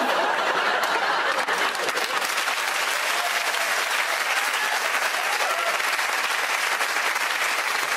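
Studio audience applauding, a dense, even clatter of many hands that holds steady throughout.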